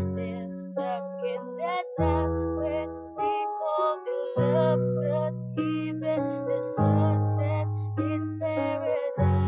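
Instrumental backing music led by piano or keyboard chords over low bass notes; each chord is struck and rings away, with a new one every second or two.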